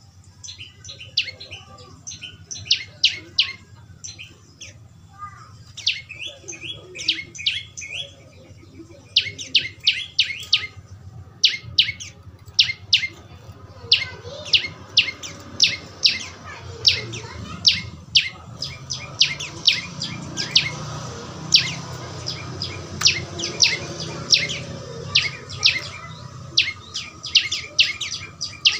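Young prenjak lumut chirping: quick runs of short, sharp, high chirps, several a second, in clusters with brief gaps between, over a low hum that swells mid-way.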